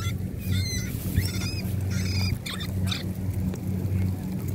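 Rats squealing in a string of short, high squeaks through the first three seconds, over the steady low hum of a running boat engine.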